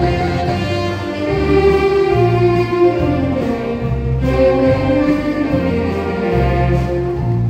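Band music: a sustained melody over a steady, pulsing bass line.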